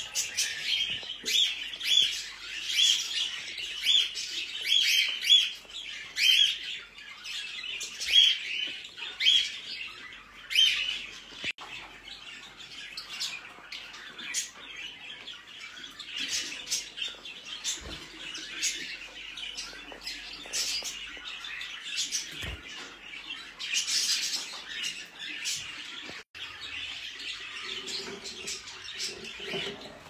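Budgerigars chirping: a run of short, evenly spaced chirps about twice a second for the first ten seconds or so, then a denser, irregular chatter.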